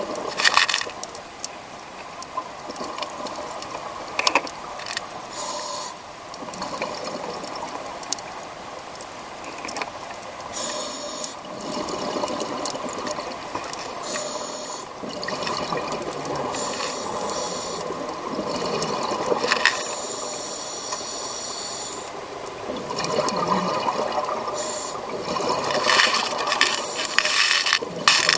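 Scuba diver's regulator heard underwater: bursts of breathing hiss and exhaled bubbles every few seconds, over a steady crackle with scattered clicks.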